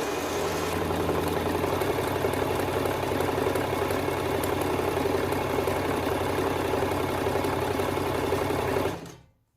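Electric sewing machine running steadily at speed, winding thread onto a metal bobbin. It cuts off suddenly about nine seconds in, when the bobbin is full and the winder stops by itself.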